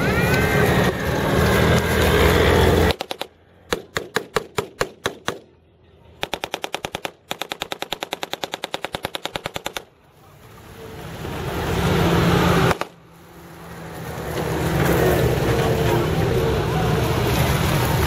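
Automatic-weapon fire at a WWII battle re-enactment: about ten separate shots, then a fast, even string of shots lasting about four seconds. Before it a military truck's engine runs; after it, WWII jeeps drive past, their engine sound swelling as they come close.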